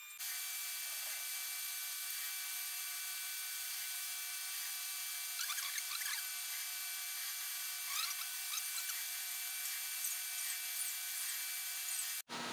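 Metal lathe running with a steady high-pitched whine while turning a metal piston. A few brief scratchy chirps come from the cutting about halfway through and later, and the sound cuts off abruptly near the end.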